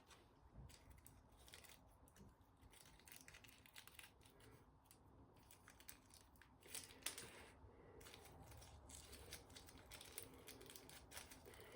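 Near silence, with faint scattered clicks and crackles.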